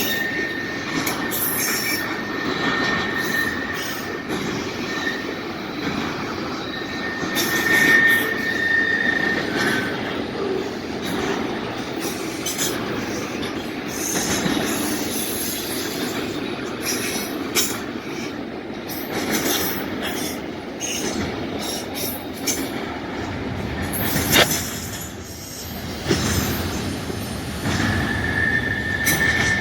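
Train rolling past with a steady rumble and clatter of wheels on the rails, and scattered knocks. A thin, high, steady wheel squeal comes and goes: at the start, again several seconds in, and near the end.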